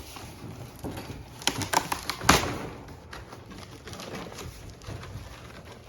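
A few short knocks and scrapes from the boxed dog cage being handled and pulled out. The loudest knock comes a little over two seconds in.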